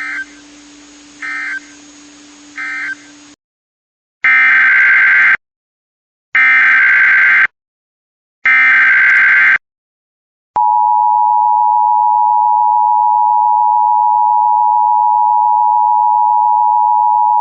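Emergency Alert System signalling. First three short data bursts, the end-of-message code closing the alert. After a pause come three longer data bursts of a new alert's header, each about a second long. About ten seconds in, the steady two-tone EAS attention signal starts and sounds loudly to the end.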